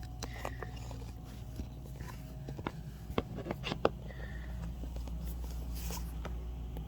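Handling noise: scattered light clicks and taps as a camera is set down and laptop parts are handled, over a low steady hum.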